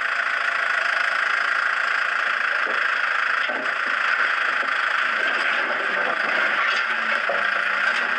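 Tractor engine running steadily while its front loader works, with a few faint clatters of stones tipping out of the loader bucket.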